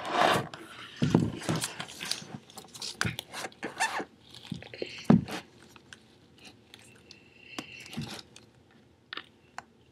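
A sheet of printer paper being handled and set in place, with irregular rustles, crinkles and light knocks.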